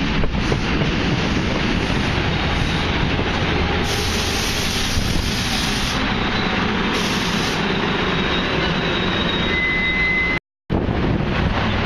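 Steady rumble of an NJ Transit passenger train's coaches rolling along the track, with a brief thin wheel squeal near the end. The sound cuts out for a moment about ten and a half seconds in.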